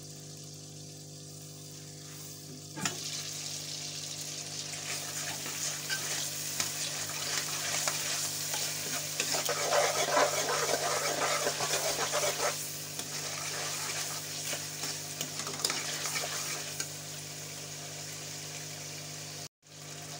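Tomato masala frying in ghee in an aluminium karahi, sizzling while a metal spoon stirs and scrapes it. The sizzle and stirring start suddenly about three seconds in, after a quieter stretch with a low steady hum, and are loudest in the middle.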